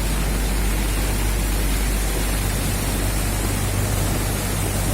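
Steady, loud rushing noise, even from low to high, with a low hum underneath.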